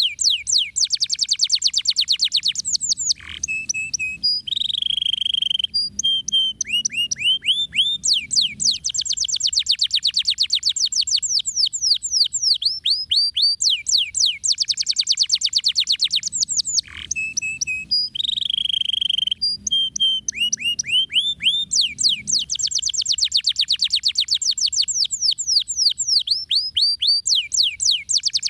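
Domestic canary singing a long, continuous song of fast trills (rolls), each a rapid run of falling high notes. Twice the trills give way to a short lower held note and buzzy phrase before resuming.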